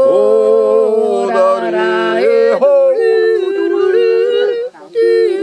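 A man and a woman singing a song together, unaccompanied and in two-part harmony, with long held notes that step from pitch to pitch.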